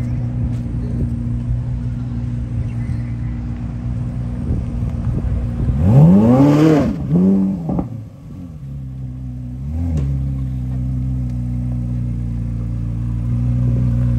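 2023 Chevrolet Corvette C8 Z06's 5.5-litre flat-plane-crank V8 idling. About six seconds in it is revved hard once, the pitch climbing steeply and falling back, with a shorter second blip right after. A small blip comes about ten seconds in before it settles back to idle.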